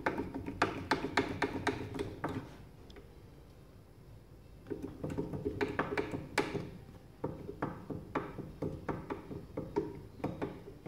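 Irregular clicks and knocks of metal engine parts being handled, with a quieter pause of about two seconds partway through.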